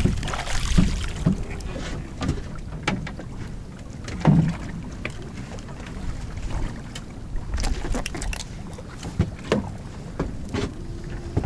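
Irregular knocks and clicks as a just-landed pollock is handled and unhooked in a small drifting fishing boat, over a steady low rumble of wind and water against the hull. One knock about four seconds in stands out above the rest.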